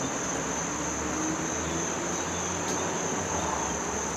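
Insects trilling steadily in one continuous high-pitched tone.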